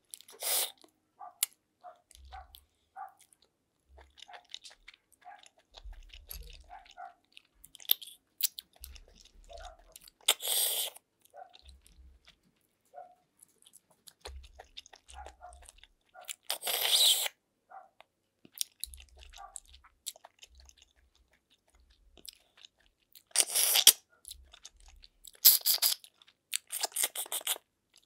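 Eating snails cooked in coconut milk: about six loud sucking slurps as the meat is drawn out of the shells, with chewing and small clicks between them.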